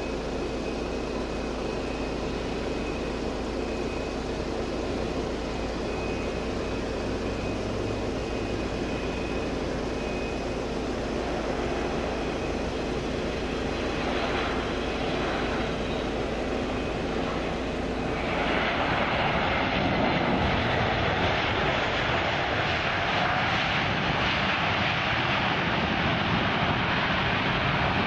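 Southwest Boeing 737 jet landing: a steady engine whine on approach and touchdown. About eighteen seconds in, a louder rushing jet noise sets in and holds, typical of reverse thrust on the landing roll.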